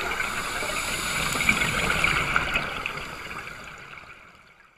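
Steady underwater rushing of water, fading away to silence near the end.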